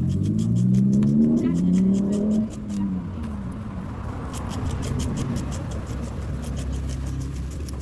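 A motor vehicle engine revving up, its pitch rising for about two and a half seconds, then settling to a low steady running rumble. A fast train of sharp clicks goes on throughout.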